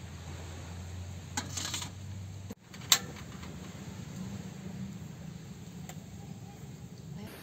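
Portable butane gas stove being lit: one sharp click of the knob's igniter about three seconds in, after which the burner runs with a steady low sound. A brief light clatter comes just before.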